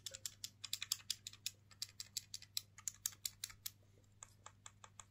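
Rapid clicking of small plastic buttons on a cheap-feeling handheld device pressed with the thumbs, about five or six clicks a second, slowing after about four seconds and then stopping.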